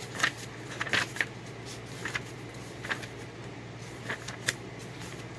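Pages of a book being opened and turned: several short papery rustles spread over a few seconds, over a faint steady hum.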